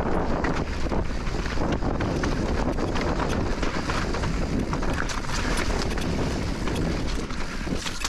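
2022 Specialized Turbo Levo Alloy e-mountain bike riding over a rough trail: wind buffets the microphone with a steady rumble, while the tyres and bike clatter with many small clicks and knocks.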